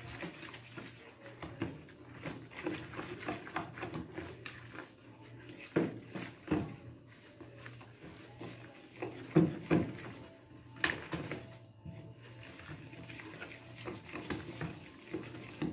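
Wooden spoon stirring flour into cake batter in a plastic bowl by hand: irregular scraping and soft knocks against the bowl, with a few louder knocks about midway.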